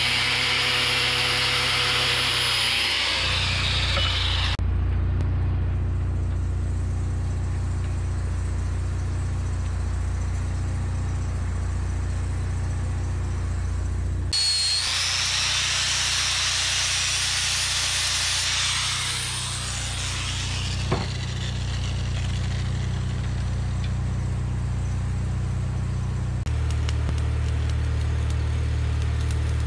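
Engine running steadily, a low even hum whose tone shifts at edits. For the first few seconds, and again for about five seconds midway, a harsh hiss of metal being worked covers it.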